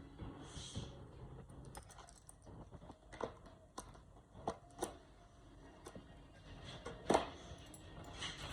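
Faint scattered light clicks and taps of a just-opened slime package and its small containers being handled, the loudest about seven seconds in.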